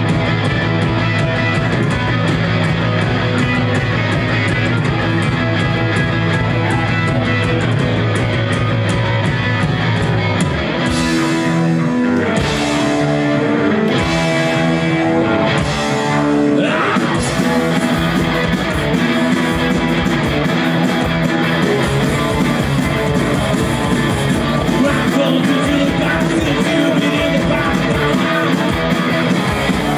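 Live punk rock band playing loud, with electric guitar and singing. About ten seconds in, the steady low note drops out for a few seconds of stop-start hits, then the full band comes back in.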